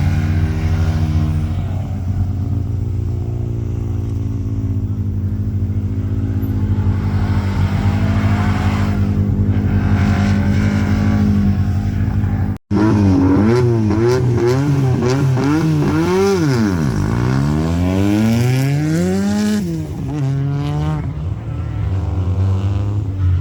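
Historic rally car engine: in the first half it runs at a steady, fast idle. After a cut about halfway, it is revved hard several times in quick succession, then its pitch drops and climbs again as the car accelerates away.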